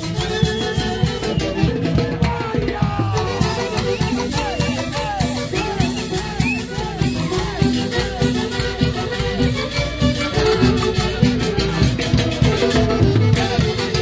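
Live huaylash music from a festival band, playing continuously and loudly over a steady, quick beat.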